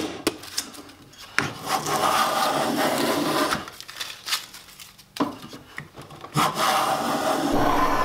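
A wooden-body smoothing plane cutting along a board in long planing strokes, a rasping hiss of the blade taking shavings, about three passes with short pauses between. Just before the first stroke there are a couple of faint taps.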